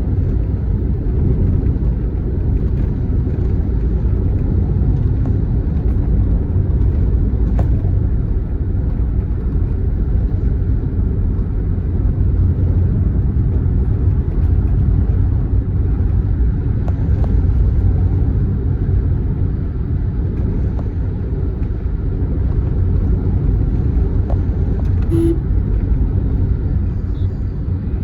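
Steady low rumble of a moving vehicle, road and wind noise, without letting up. A short tone sounds once, about 25 seconds in.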